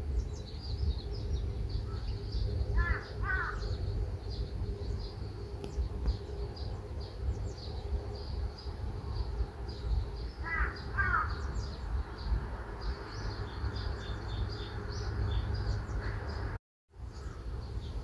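Small birds chirping continuously in short high notes, with a louder, lower bird call twice, about three seconds in and again about ten seconds in. A steady low rumble runs underneath, and the sound cuts out for a moment near the end.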